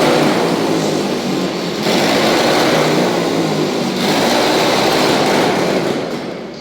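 A vehicle running, with a steady rushing noise over a low engine hum, in three segments that change abruptly about two and four seconds in, fading out near the end.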